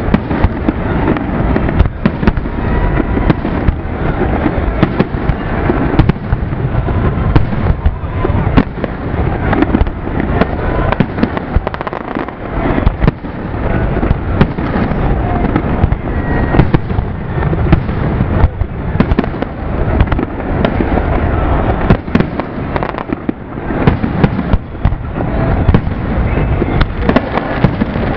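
Zambelli professional aerial fireworks display in a rapid barrage: shells bursting one after another with no pause between them.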